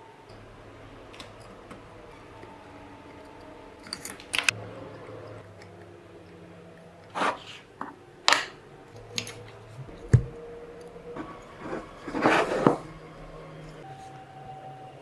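Small plastic and metal parts of a model engine kit being handled and fitted by hand: scattered sharp clicks and taps, with a longer rustling scrape about three quarters of the way through.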